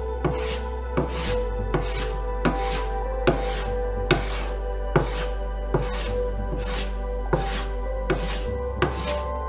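Small hand plane taking shavings off a wooden board in repeated short strokes, over background music.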